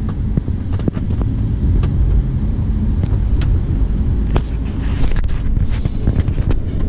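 Lamborghini Huracán's 5.2-litre V10 engine running at low revs with a steady low rumble as the car rolls slowly, heard from inside the cabin, with scattered light clicks.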